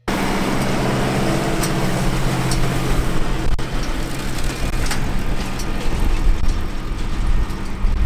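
A Fendt 309 tractor's engine running steadily under load while it drives a Criap Midi-Baler 85 combined baler and wrapper that is baling grass, with the machinery clattering and a few sharp clicks.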